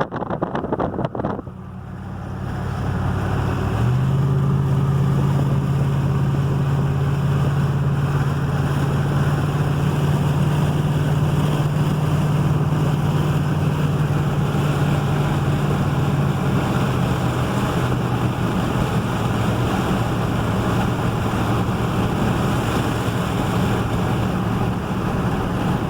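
Vehicle driving, heard from inside: a steady engine hum over road and wind noise. It picks up about three seconds in, and the engine note drops lower about two-thirds of the way through.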